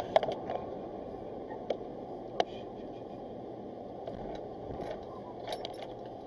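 Steady road and engine noise inside a moving car, picked up by a dashcam, with a scatter of short sharp clicks and knocks, the sharpest just after the start and about two and a half seconds in.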